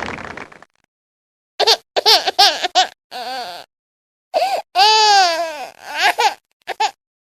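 High-pitched giggling laughter in a string of short bursts with one longer arching laugh in the middle, after a noisy sound fades out at the start.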